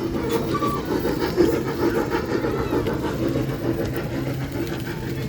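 Engine of a small ride-on festival train running steadily close by.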